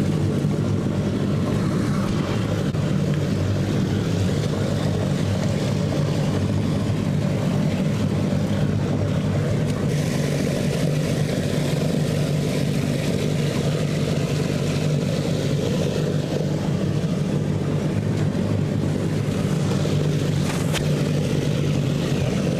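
Small engine-driven water pump running at a steady speed, pumping water out of a fish pond.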